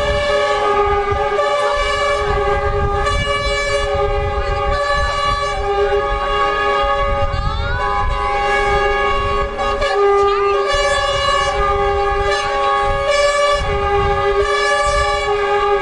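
Lorry air horns blaring continuously and overlapping as a convoy of trucks approaches, over a low rumble of engines. A brief rising tone cuts through about seven and a half seconds in.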